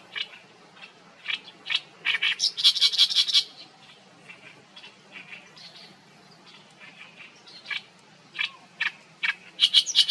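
Oriental reed warbler singing its harsh, chattering song: short grating notes repeated in quick runs, with the densest phrase about two seconds in and another near the end.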